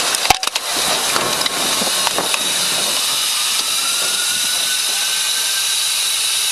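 Crash aftermath: a sharp bang just after the start and a few clattering knocks over the next two seconds, over a loud steady hiss from the wrecked vehicles. A faint whine slowly rises in pitch from about halfway.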